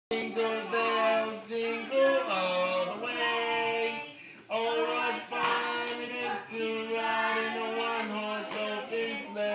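Singing with steady held notes, from a pink toy keyboard-and-microphone set, with a short break a little before halfway.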